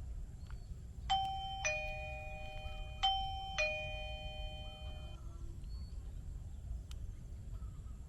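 Eufy video doorbell's electronic chime sounding twice, each a two-note ding-dong, a higher note then a lower one, ringing out for a second or two.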